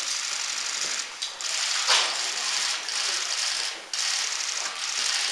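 Many press camera shutters firing in rapid, overlapping bursts as a dense high clatter, broken by a couple of short pauses.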